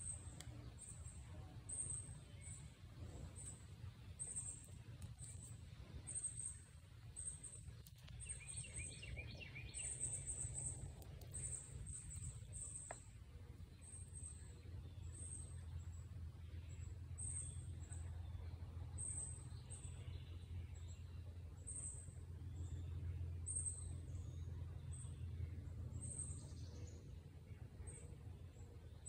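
Steady low rumble of outdoor background noise, with a short high chirp repeating roughly once a second and a brief bird call about nine seconds in.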